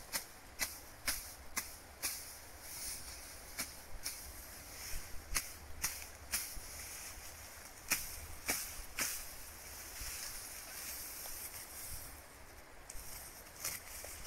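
Grass stalks being cut by hand for fodder: a dozen or so irregular sharp snaps in loose clusters, pausing for a few seconds near the end, over a steady high hiss.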